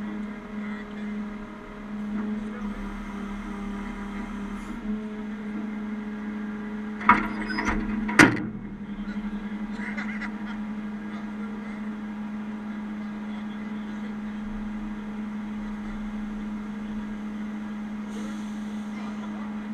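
Heavy-duty tow truck's engine idling with a steady hum, broken by two sharp knocks about seven and eight seconds in.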